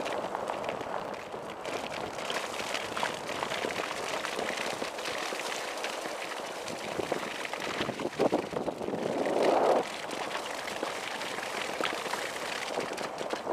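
Kite buggy rolling over wet, rippled beach sand, heard from a camera on the buggy's front yoke: a steady rushing, crackling noise full of small ticks. It swells louder about eight seconds in and cuts off suddenly near ten seconds.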